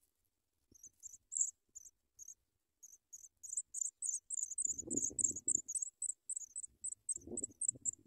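African pipit nestlings begging with thin, very high chirps. A few scattered chirps come first, then from about three seconds in a fast, unbroken string as the adult reaches the nest. Dry grass rustles twice in the second half.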